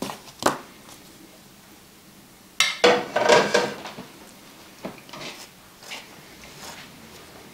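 Plates and eating utensils clinking and knocking, with a louder clatter about two and a half seconds in and a few lighter knocks after it.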